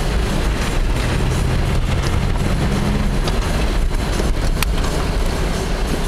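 A 4x4's engine running and its tyres rumbling over a snow-covered road, heard from inside the cab, with a few sharp clicks from the vehicle over the bumps, the clearest about four and a half seconds in.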